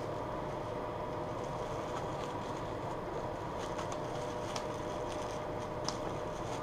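Steady hum of a kitchen range hood fan, with a few faint crinkles of a plastic bag being handled.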